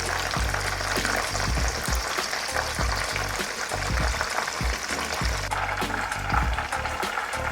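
Breadcrumb-coated chicken wings deep-frying in hot oil: a dense, steady sizzle and crackle. A low musical beat pulses underneath.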